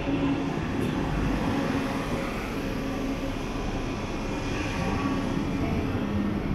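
Double-deck regional train passing along the platform under a station train shed: a steady rolling rumble with a faint humming tone.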